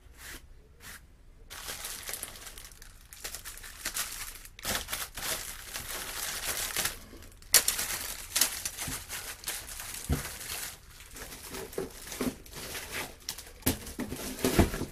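Packaging crinkling and rustling as it is handled, starting about a second and a half in, with scattered light clicks and knocks of small hard parts; one sharp click about halfway through is the loudest.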